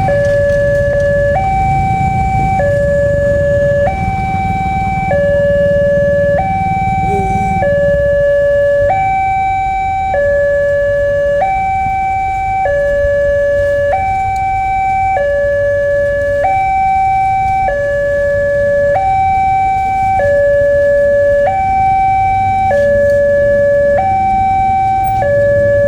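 Level crossing's electronic warning alarm sounding a steady two-tone hi-lo signal, switching pitch about every 1.2 seconds, the signal that a train is approaching and the crossing is closed. Under it is a low rumble that eases after about 8 seconds.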